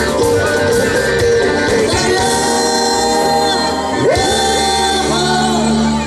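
A rock band playing with a sung lead vocal: choppy rhythmic strumming for the first couple of seconds, then held chords and long sung notes, with one note sliding up about four seconds in.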